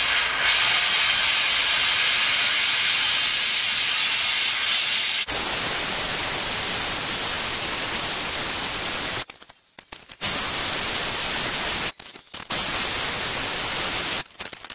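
Gas torch flame hissing steadily as it heats a sand-filled steel exhaust pipe for bending. The hiss changes in tone about five seconds in and breaks off briefly a few times in the second half.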